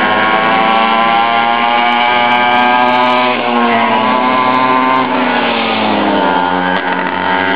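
Small two-stroke pocket bike engines revving and easing off as the bikes ride laps, their pitch rising and falling. One bike passes close about six seconds in.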